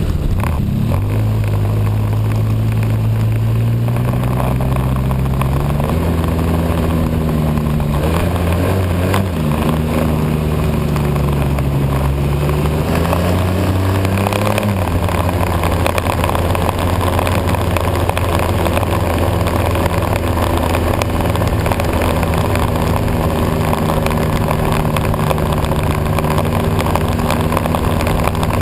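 Snowmobile engine running under way. Its pitch rises and falls several times over the first fifteen seconds or so, then holds steady at a constant speed.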